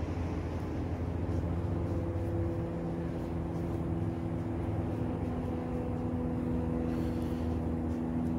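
Steady low mechanical hum with several constant pitches, a machine or motor running without change.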